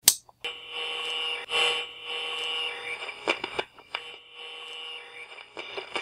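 A radio switched on with a sharp click and tuned between stations: hiss with several steady whistling tones, broken by crackles and clicks.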